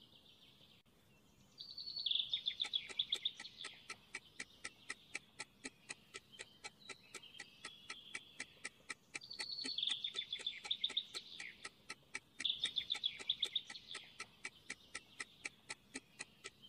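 Countdown sound effect: steady rapid ticking, about four ticks a second, with bursts of bird chirping and trilling over it.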